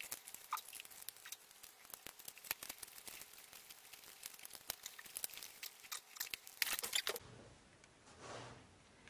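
Plastic flush-mount wall box and its stiff wires being pushed and worked into a wall opening: a dense run of faint crackling clicks and scrapes, which stops abruptly about seven seconds in.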